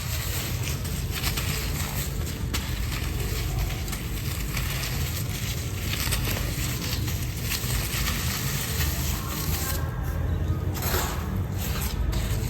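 Dry sand-cement chunks being crumbled and crushed close to the microphone: a continuous grainy crackling and scraping, with dull handling thuds underneath.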